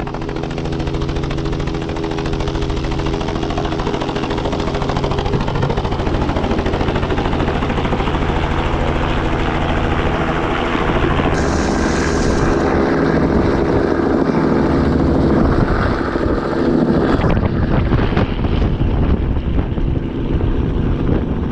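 Helicopter close by, its rotor and engine running steadily and loud. About 17 seconds in the sound turns rougher, with wind buffeting the microphone.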